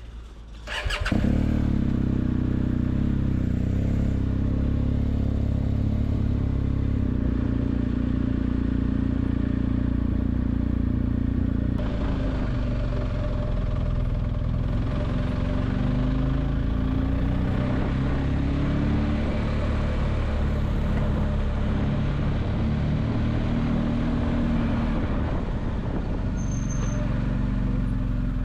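Motorcycle engine running as the bike is ridden, its pitch rising and falling with the throttle. It gets much louder about a second in.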